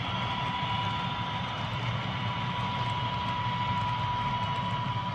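HO scale model train running steadily, a locomotive pulling a string of boxcars: an even mechanical hum with a thin, steady whine over it.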